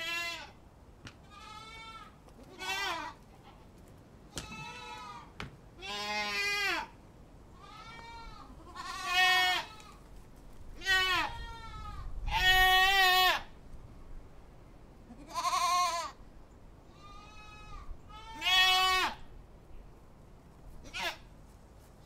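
Goats bleating, about a dozen separate calls at different pitches, each half a second to a second long. The longest and loudest call comes about twelve seconds in.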